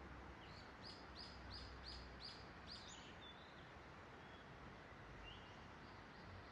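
A small songbird singing faintly: a run of about six quick, evenly spaced high notes, then a few scattered single notes, over a steady background hiss.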